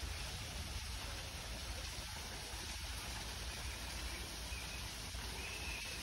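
Steady outdoor hiss over a low rumble, with a couple of faint high chirps about four and a half and five and a half seconds in.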